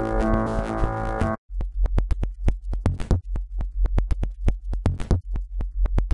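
Electronic soundtrack music: a dense, sustained synthesizer chord that cuts off suddenly about a second and a half in, then a sparse, uneven rhythm of sharp clicks over a deep bass pulse.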